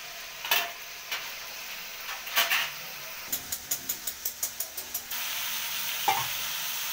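Chopped onions and tomatoes sizzling in hot oil in a metal kadhai while being stirred with a metal spatula: a few knocks, then a quick run of scrapes about six a second midway, after which the sizzle turns louder and steadier.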